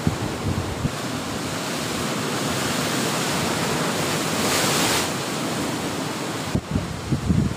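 Sea waves surging in and breaking against the rocks below a cliff. The rush of water swells to a loud crash of white water about halfway through, then eases as it washes back.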